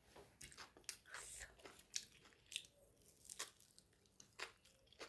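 Faint, irregular crunching of someone biting and chewing crisp fried pakora.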